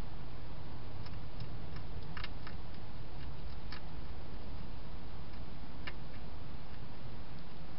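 A wild hedgehog eating from a dish, giving a scatter of small, sharp crunching clicks, most between two and four seconds in and one more near six seconds, over a steady background hiss.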